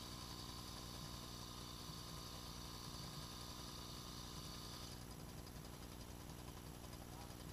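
Faint, muffled quad engine idling steadily. A thin high hiss drops away about five seconds in.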